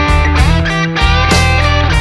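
Loud rock music with electric guitar over a heavy, pulsing bass line.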